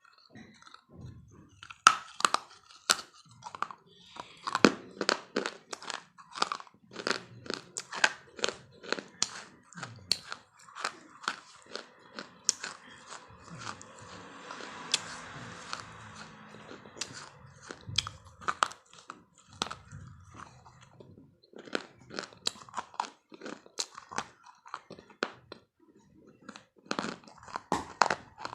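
A person chewing crunchy food: rapid, irregular crunches several times a second, with a couple of short pauses.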